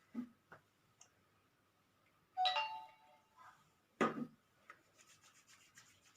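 Hard objects being handled: a ringing clink about two and a half seconds in and a sharp knock about a second and a half later, with a few light clicks before. Faint soft rustling follows near the end.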